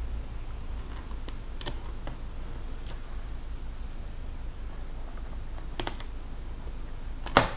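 Scattered light clicks and taps of a laptop DDR4 SO-DIMM RAM module being handled and slid at an angle into its slot, then near the end one sharp, louder click as the module is pressed down and the slot's retaining clips snap into place.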